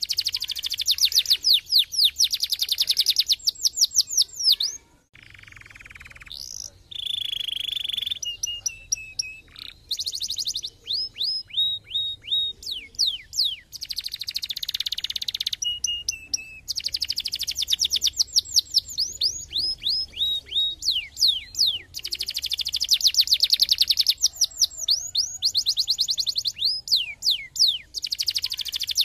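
Domestic canary singing: fast trills of rapidly repeated downward-sweeping notes, broken up by held whistled notes and rolling phrases. The song drops away briefly about five seconds in, then resumes.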